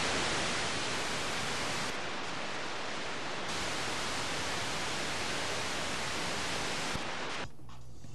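Steady, loud static hiss spread evenly across the whole range, which starts abruptly and drops away suddenly about seven and a half seconds in, leaving a few faint clicks.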